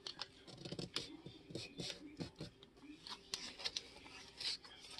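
Blue masking tape being pulled and wrapped tight around a ferro rod's handle: a run of irregular soft crinkles, rubs and small clicks.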